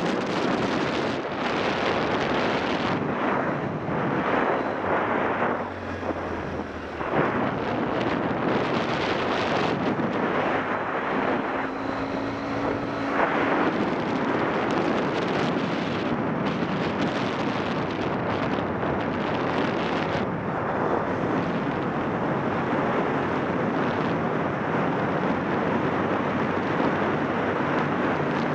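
Wind buffeting a microphone on a moving motorcycle, swelling and easing in uneven gusts, over the running of a Yamaha XTZ 750 Super Ténéré's parallel-twin engine.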